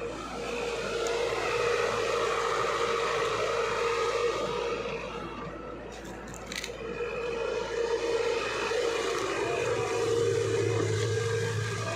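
Excavator running, with a steady whine that eases off about halfway through and then picks up again.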